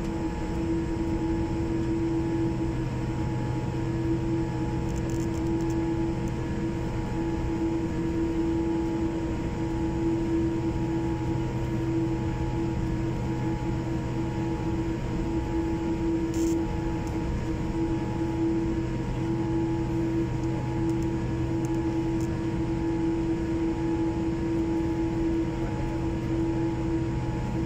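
Cabin noise of a Boeing 787-8 taxiing after landing: a steady drone with a prominent even hum over a low rumble.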